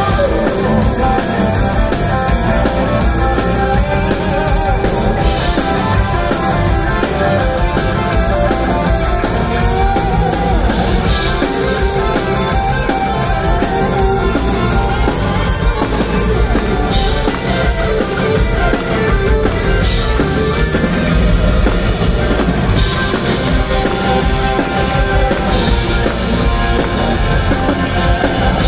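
Live rock music from a band with drum kit and guitar, playing continuously at a steady loud level.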